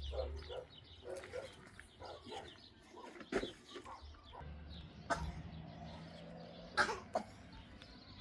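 Scattered short animal calls, with sharp knocks about three, five and seven seconds in.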